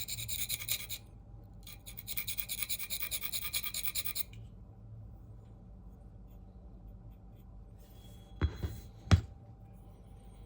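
CPM 4V steel knife blade scraping back and forth across a coarse 325-grit diamond plate in quick strokes, in two runs that stop about four seconds in: reprofiling the edge while working to raise a burr. Two sharp knocks follow near the end.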